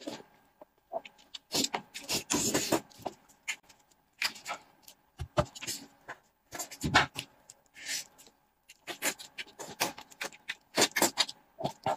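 Mouth sounds of eating stewed sheep's head: irregular smacking, sucking and chewing as meat is pulled from the bones with the teeth and lips.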